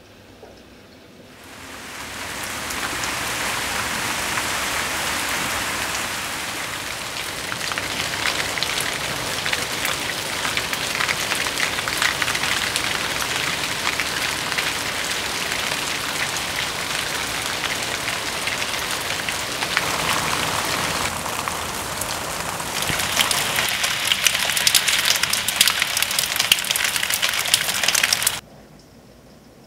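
Rain falling steadily: a dense hiss made of many small drop patters. It fades in about a second and a half in, grows heavier with sharper drop hits over the last few seconds, then cuts off suddenly just before the end.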